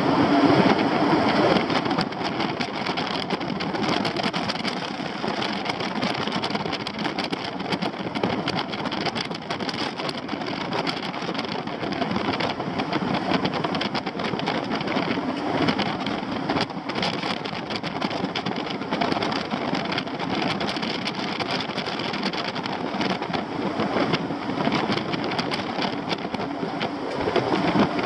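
A vehicle driving on a gravel road: steady tyre and engine noise with frequent sharp clicks of stones, louder near the start and again near the end.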